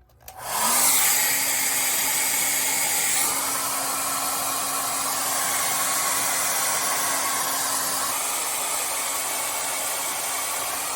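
Electric hair dryer switched on, its motor spinning up over the first second, then blowing steadily with a constant hum under the airflow.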